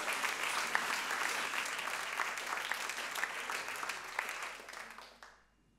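Audience applauding, with dense clapping that dies away about five seconds in.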